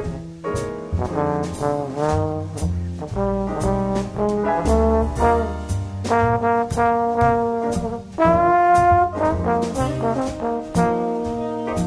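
Instrumental jazz background music: a brass melody of held notes over a bass line, with a steady drum beat.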